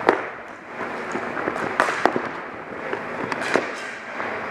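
Ball hockey play: several sharp cracks of sticks striking the ball and the floor, the loudest right at the start and a quick pair about two seconds in, over steady background noise from the rink.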